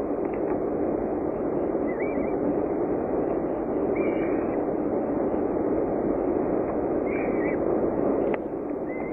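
Steady rushing background noise, with a few faint, short high cheeps from downy falcon chicks begging while being fed. A sharp click comes about eight seconds in, after which the noise drops slightly.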